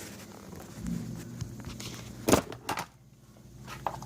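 A few sharp clicks and knocks of plastic parts being handled under a dishwasher, the loudest about two and a half seconds in, as a small wiring attachment in the base is unplugged.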